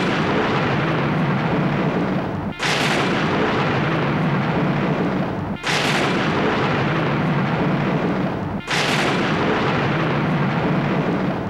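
Four loud booming crashes about three seconds apart, each starting suddenly and dying away slowly, played as an intro sound effect before the music begins.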